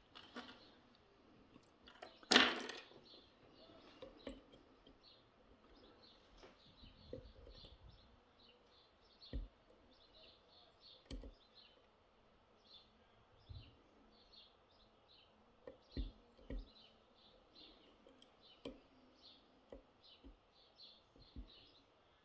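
Faint, scattered small clicks and taps of lock picks working a Miwa dimple lock, with a short louder noise about two seconds in. Small birds chirp faintly in the background through most of it.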